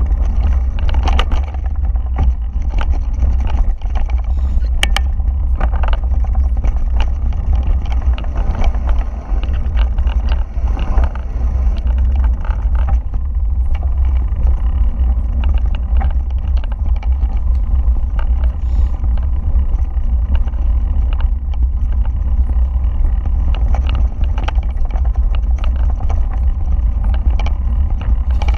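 Mountain bike rattling and clattering over a rough dirt trail descent, with many short knocks and clicks, over a loud steady low rumble of wind buffeting the handlebar-mounted action camera's microphone.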